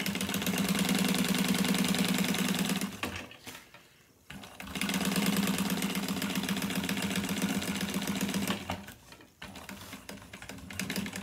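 Juki industrial walking-foot sewing machine stitching webbing onto sail cloth in two runs of fast, even stitching with a steady motor hum. The first run stops about three seconds in, the second starts about a second later and stops near the end, with light clicks of the machine after it.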